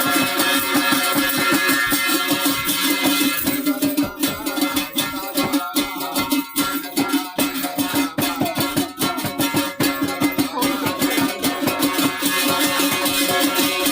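Instrumental Garhwali folk dance music with a steady rhythmic beat, choppier through the middle.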